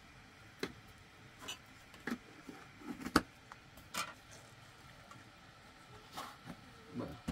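Scattered light clicks, knocks and rattles from handling a wire grilling basket as fish are laid into it, with one sharper click about three seconds in.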